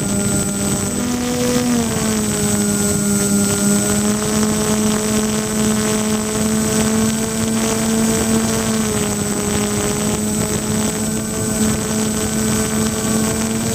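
The twin electric motors of an RC plane, spinning 10×6 propellers, drone steadily as heard from the camera mounted between them. The pitch shifts slightly a second or two in and again later as the throttle changes.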